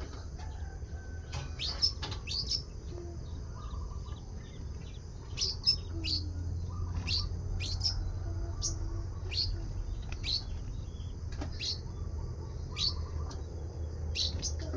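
Sogon bird giving short, high chirps at irregular intervals, roughly one every second or so, over a low steady hum.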